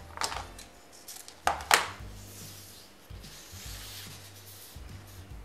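Ribbon being handled and rubbed against the cake's fondant as it is wrapped around a tier, a soft rubbing hiss, with a few sharp clicks in the first two seconds, the loudest two close together about a second and a half in.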